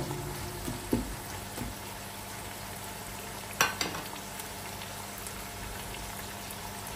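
Sliced onions frying in hot oil in a pot with a steady sizzle as they brown to dark brown. There is a sharp knock about a second in and two more close together about three and a half seconds in.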